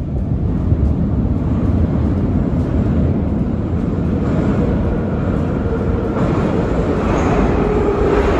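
Metro train approaching the station through the tunnel: a low rumble that grows, with a steady whine coming in about halfway and strengthening near the end.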